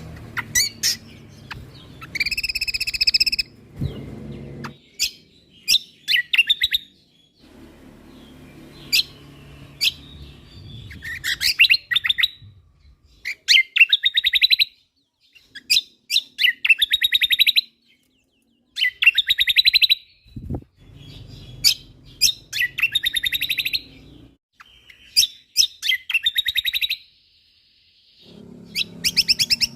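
Kecial kombok (cucak kombo) songbird singing in full voice: short, fast, high trilled phrases of rapid notes repeated every second or two with brief pauses between.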